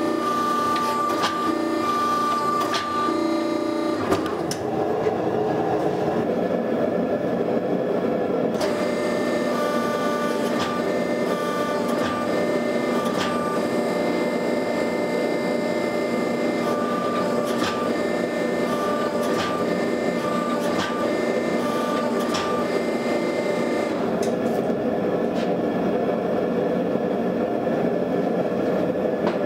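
Forging machinery running steadily as hot steel is flattened and reheated: a powered rolling mill and gas forge burners make a continuous mechanical drone with a steady whine. The sound shifts slightly about four seconds in and again around eight seconds.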